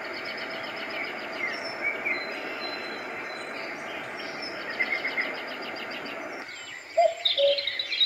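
Roffie N600 white noise machine playing a recorded nature-sounds track through its speaker: birds chirping and trilling over a steady rushing hiss. About six and a half seconds in, the track cuts off and the next sample starts with louder, separate bird calls.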